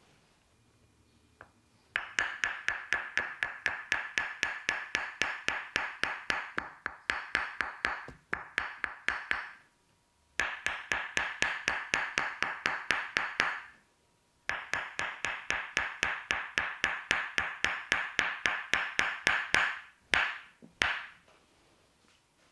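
Rapid percussive massage strikes on the shoulders and neck, an even hollow tapping at about five strikes a second. They come in three long runs broken by brief pauses, ending with two separate strikes.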